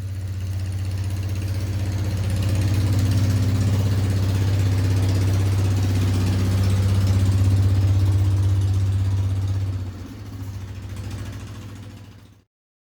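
A vehicle engine running steadily at low speed, its level dropping about ten seconds in before it cuts off abruptly near the end.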